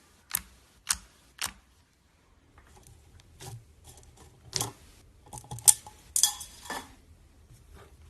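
Slime being squeezed and poked by hand, giving sharp popping clicks: three evenly spaced in the first second and a half, then softer sticky crackles with a few louder pops and a dense crackly burst of pops a little after six seconds in.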